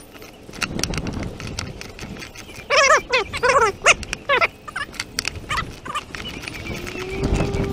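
A socket ratchet wrench clicking as it turns a nut off a bolt at the base of a wooden gate post. In the middle come a few short animal calls with a wavering pitch, the loudest sounds of the stretch.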